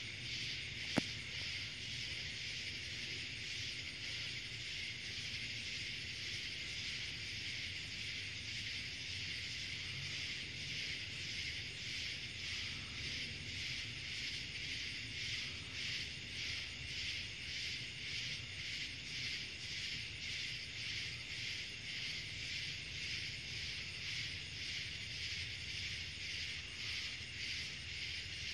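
Night insect chorus, crickets or katydids, a steady high shrill with an even pulsing rhythm, over a low steady hum. A single sharp click about a second in.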